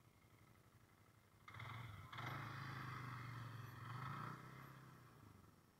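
Small off-road vehicle engine passing by: it comes up about a second and a half in, runs at a steady pitch for a few seconds, then fades away.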